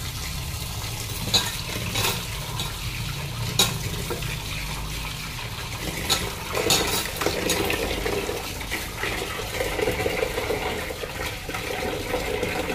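Tap water running into a metal bowl of raw quail pieces in a steel sink, splashing as a hand rubs and rinses the meat, with a few sharp clinks.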